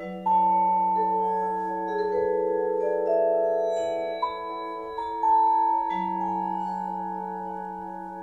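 Percussion quartet playing vibraphone and other tuned mallet percussion: a slow melody over long, ringing sustained chords. A low note is struck at the start and again about six seconds in.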